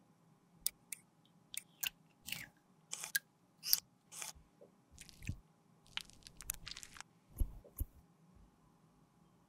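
A metal lipstick case and a lipstick mold being handled in gloved fingers: a run of short clicks and taps with brief scraping rustles, as the lipstick is taken from the mold into its case.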